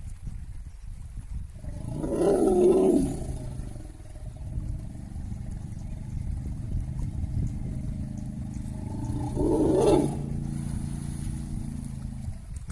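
Asian elephant roaring in a long, low, lion-like growl that lasts about ten seconds. It swells louder twice, about two seconds in and again near the ten-second mark.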